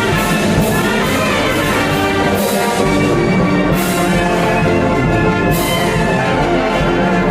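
Brass band music, with horns playing held chords and bright accents every second or two.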